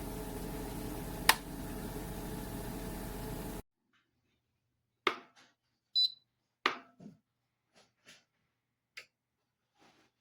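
Small electric travel kettle heating water with a steady rushing hum, broken by one sharp click about a second in; the sound cuts off abruptly after about three and a half seconds. After that come a few scattered clicks and knocks and one short high beep.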